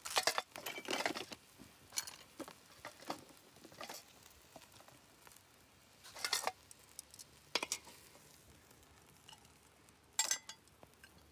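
Irregular metal clicks and scrapes of a cooking utensil against a charcoal grill's wire grate as a steak is lifted off, busiest at the start, with one louder clink near the end.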